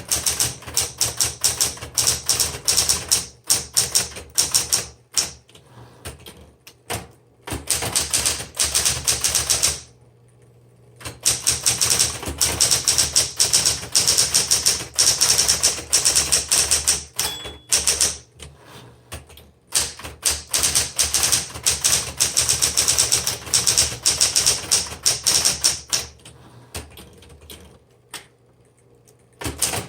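1960s Smith Corona Electra 110 electric typewriter being typed on: fast runs of typebar strikes broken by short pauses, with a clear break about ten seconds in and a lull near the end.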